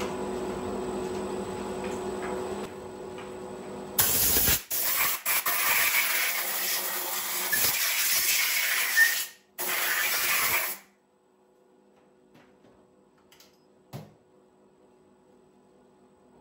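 Compressed-air blowgun hissing in a few loud blasts with short breaks, blowing metal chips out of the bolt holes of a freshly turned wheel centre. Before it starts, a steady machine hum with a few held tones.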